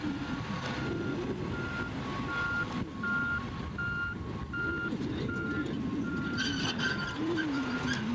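Heavy diesel earthmoving machinery running, with an engine note that wavers in pitch. Over it, a backup alarm beeps steadily at one pitch, about three beeps every two seconds.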